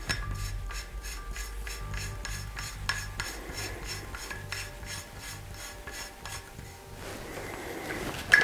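Sako TRG M10 rifle's barrel collar being screwed by hand into the receiver: metal rubbing with a quick run of light ticks, about four a second, which stop about seven seconds in.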